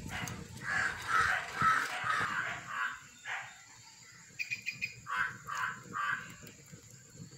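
A crow cawing in two runs of harsh calls, about five in a row in the first few seconds and three or four more near the end. There is light clatter of a ladle stirring in a metal pan at the start.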